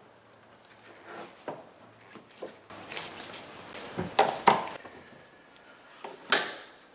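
Slip-joint pliers and rubber engine hoses being handled in a car's engine bay: scattered clicks and knocks, the loudest two sharp knocks about four seconds in, then a longer scuff about six seconds in.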